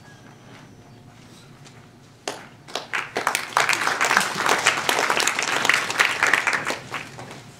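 Audience applauding. A quiet moment is followed by clapping that starts about two seconds in and dies down near the end.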